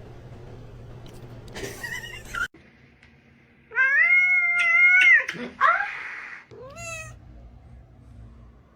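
A cat meowing: one long, loud, drawn-out meow about four seconds in, then a short rising meow a couple of seconds later.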